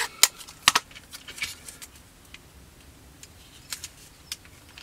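Tape being pulled and wrapped around a glued plastic model fuselage to clamp it. There are two sharp clicks within the first second, then softer ticks and short crackling rustles.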